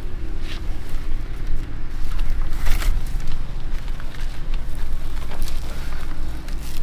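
Steady low rumble of wind on the microphone, with irregular rustles and creaks as a woven bamboo back basket is handled and lifted onto the back.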